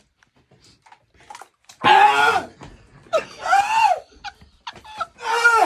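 A man's loud, drawn-out cries of pain, three of them starting about two seconds in, the middle one wailing up and then down in pitch: his reaction to the burn of an extremely hot chip.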